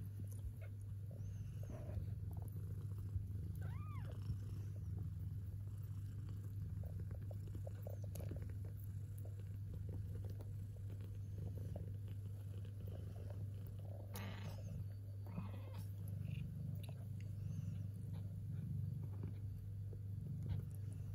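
A nursing mother cat purring steadily in a low continuous hum. About four seconds in, a newborn kitten gives one short high mew that rises and falls.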